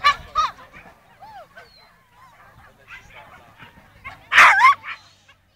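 Dog barking: a few sharp barks at the start, fainter scattered barks, then a loud burst of barks a little over four seconds in.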